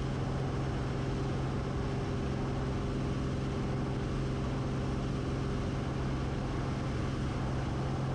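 Cessna 180 Skywagon's 520 six-cylinder engine and three-bladed propeller at climb power just after takeoff. It makes a steady, even drone with a strong low hum, which the crew calls loud and put down mainly to the propeller.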